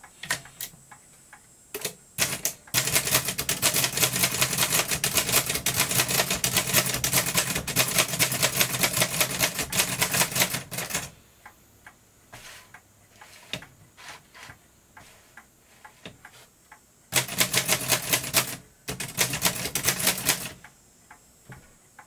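Typing on an 1892 Chicago No. 1 typewriter, its keys driving the type sleeve against the paper: a few single strikes, then a fast run of key strikes for about eight seconds, scattered single strikes, and a second fast run of about three seconds near the end.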